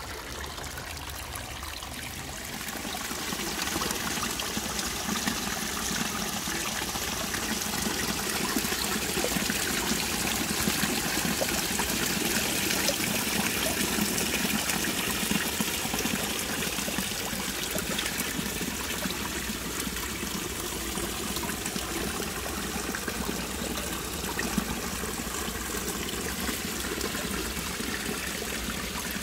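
A thin stream of water falling from an overhanging earth bank and splashing steadily into a shallow pool. The splashing grows louder about three seconds in and then holds steady.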